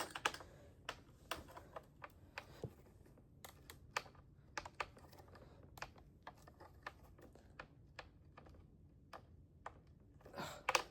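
Irregular light clicks and taps of a screwdriver and fingers working on the plastic and metal parts inside an iMac G5, with a longer scraping rustle near the end.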